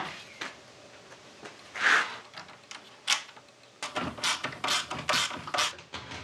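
Steel body parts scraping and clinking on a workbench, then a T-handled hand tool worked into a hole in a steel rail with a run of short scraping strokes, about two a second.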